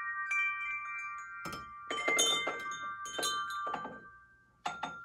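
Tube wind chime jangling as it is handled and hung up: the tubes clink together several times and ring on, then the ringing fades out near the end, followed by a sharp click.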